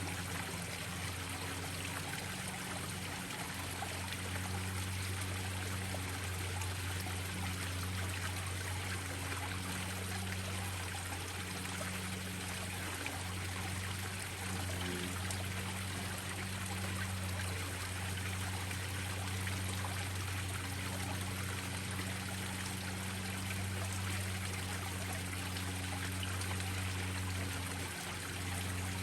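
Small garden-pond waterfalls splashing and trickling steadily into a koi pond, with a steady low hum underneath.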